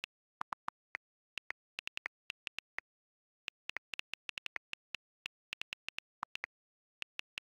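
iPhone on-screen keyboard clicks from rapid typing: short, sharp key-tap ticks in quick irregular runs with dead silence between them. A few deeper clicks, about half a second in and again just after six seconds, come from other keys.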